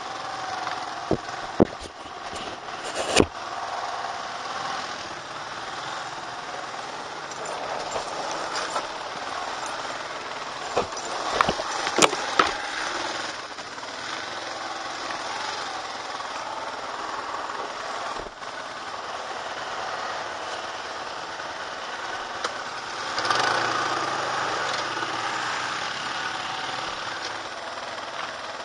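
Quad bike engine running as it rides over rough grassy ground, with sharp knocks from the bumps, a few near the start and a cluster about twelve seconds in. It grows louder about twenty-three seconds in.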